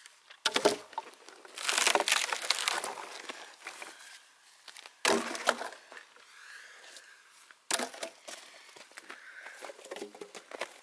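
Dead logs and branches being handled for firewood: wood knocking together and cracking as pieces are picked up and dropped onto a pile. There are several sharp knocks, with a longer splintering crunch about two seconds in.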